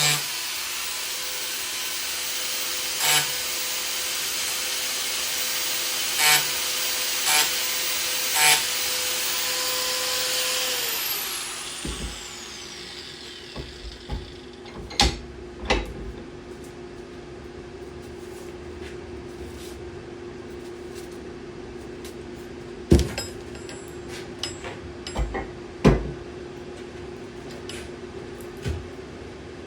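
Arbortech Power Chisel, a reciprocating chisel driven by an angle grinder, running as it cuts wood, with louder bursts as the blade bites. About 11 seconds in it is switched off and its pitch falls as it spins down. After that there is a quieter steady hum and a few sharp knocks.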